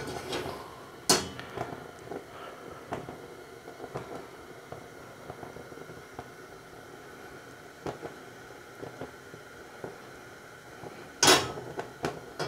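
A carbon steel wok heated over a gas hob burner, giving a low steady hiss as it is tilted to smoke the oil onto every surface for seasoning. A sharp knock comes about a second in, with a few light clicks, and louder clattering near the end.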